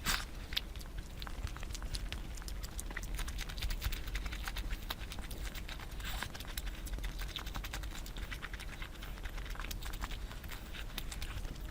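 Close-miked eating sounds: rapid, irregular wet clicks and smacks of someone chewing a mouthful of curry.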